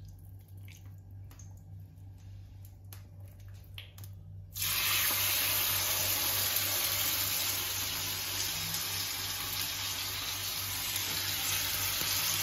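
Marinated chicken chops laid into hot oil in a ridged grill pan. After a few soft wet clicks of hands handling the chicken, a loud frying sizzle starts suddenly about four and a half seconds in and carries on steadily.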